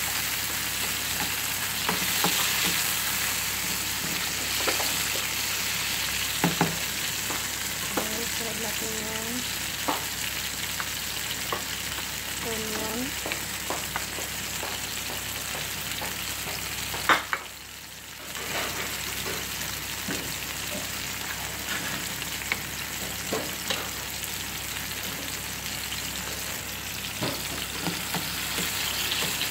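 Diced tomatoes sizzling steadily in hot oil in a nonstick frying pan as they are stirred, with scattered clicks of the utensil against the pan. Just past halfway there is one sharp knock, and the sizzle briefly drops away.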